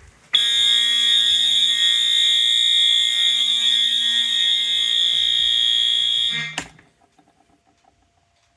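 Fire alarm horn sounding a steady, unbroken high-pitched tone on continuous coding for about six seconds, then cutting off suddenly.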